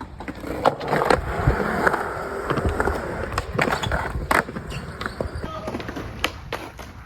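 Skateboard rolling on concrete, with several sharp clacks of the board and wheels hitting the ground.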